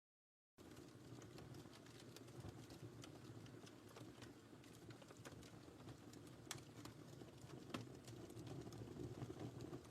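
Wood fire crackling faintly with scattered sharp pops, two louder pops in the second half. The audio cuts out completely for about half a second at the start.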